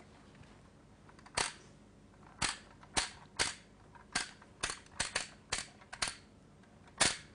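Plastic character tiles on a Guess Who board being flipped down one after another: eleven sharp clicks at uneven intervals, some close together in pairs.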